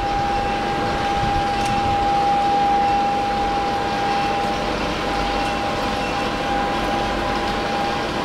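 Steady hum of industrial machinery with a constant high whine, and a faint tick or two.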